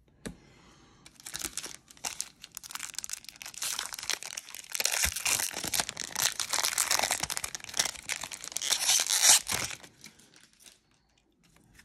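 A foil-wrapped 1993 Donruss baseball card pack crinkling and tearing as it is ripped open by hand. The crackle builds and is loudest in its last few seconds, then stops.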